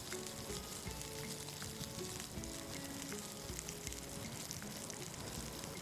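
Meat frying in a pan over a camp burner: a steady sizzle with fine crackles from the rendering fat. Background music with held notes plays over it.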